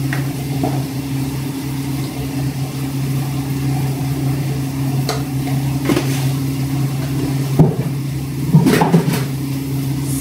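Scattered clicks and knocks of spice jars and a canister being handled and opened over a cooking pot, the sharpest knock about three quarters of the way through. Under them runs a steady machine hum.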